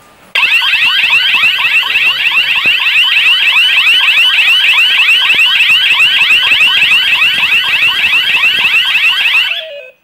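Fronti wireless burglar alarm siren going off, triggered by opening a magnetic door contact while the system is armed: a loud electronic wail of rapid rising sweeps repeated several times a second. It starts suddenly a moment in and cuts off shortly before the end.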